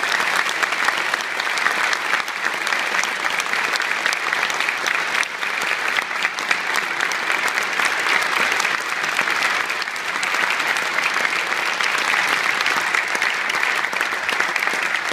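Large audience clapping in a steady, unbroken round of applause.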